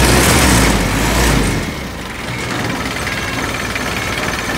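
Kia four-cylinder truck engine idling, heard close up with a strong deep rumble at first; about a second and a half in it becomes quieter and less deep, still running steadily.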